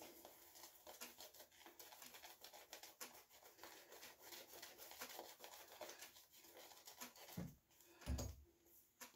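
Faint, crackly brushing of a West Coast Shaving two-tone shaving brush working shaving lather over a scalp: many quick soft scratches. Two soft low thumps come near the end.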